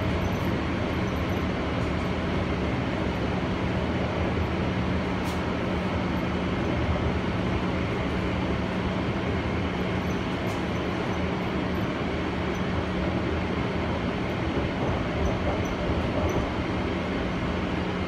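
Steady running noise of the BART Oakland Airport Connector's cable-hauled people-mover car, heard from inside the cabin: an even rumble from the car on its guideway with a low steady hum that fades about thirteen seconds in.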